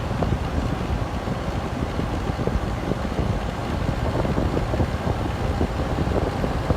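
1984 Kenmore 11,500 BTU window air conditioner running on cool: a steady, loud rush of air from its fan with a low hum underneath.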